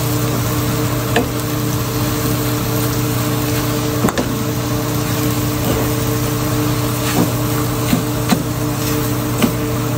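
Beef and greens sizzling in a nonstick frying pan while a wooden spatula stirs them, with a few short knocks and scrapes of the spatula against the pan. Under it runs a steady mechanical hum.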